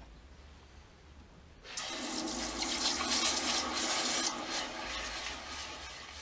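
A hot, freshly tempered steel centre quenched in a bucket of water, hissing and bubbling as the water boils off the steel. The hiss starts about two seconds in and slowly dies away.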